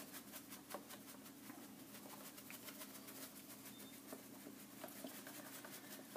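Faint, rapid soft ticking of a shaker bottle of dry BBQ rub being shaken, the granules rattling in the bottle and pattering onto raw pork ribs.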